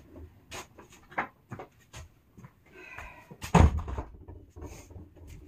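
A series of light clicks and knocks, with one louder, heavier thump about three and a half seconds in.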